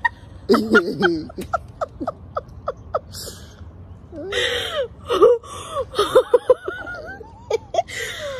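A woman laughing in short bursts, with gasps and breathy squeals between them.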